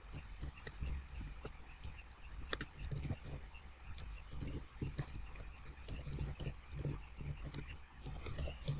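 Computer keyboard keys clicking in an irregular run of keystrokes as a terminal command is typed, over a low steady hum.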